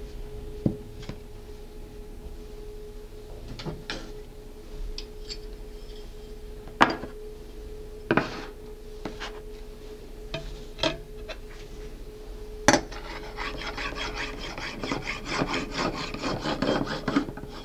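A few separate sharp knocks and clicks as aluminium guide bars are set down on the table around a sponge cake. Then, about three-quarters through, a knife starts sawing back and forth through the sponge in quick, even rasping strokes to cut it into layers.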